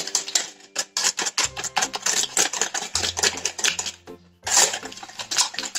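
Wire whisk beating a mixture in a stainless steel bowl by hand: rapid, rhythmic clinking of the wires against the metal, with a brief pause about four seconds in.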